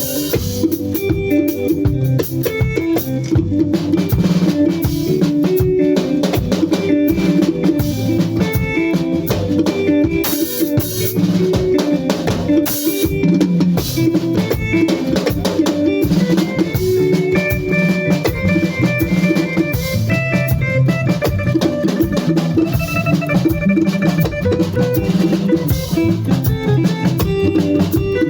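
Band music led by a drum kit playing a steady beat, with bass drum and snare hits under bass and other pitched instruments.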